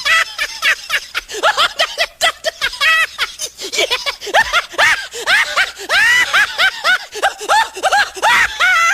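High-pitched laughter in quick bursts that rise and fall in pitch, several a second, with no break.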